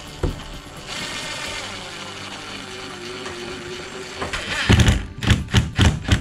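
Ryobi cordless driver running a screw into a caravan window frame: a steady whir for about three seconds, then several loud short bursts about three a second near the end as the screw is driven home.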